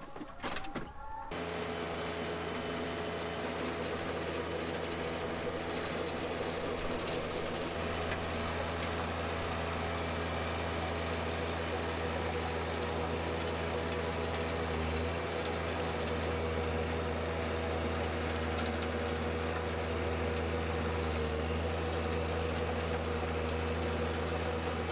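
John Deere 1025R compact tractor's three-cylinder diesel running steadily under load, driving a rear rotary tiller through the PTO in hard clay soil. It begins about a second in and holds an even pitch and level.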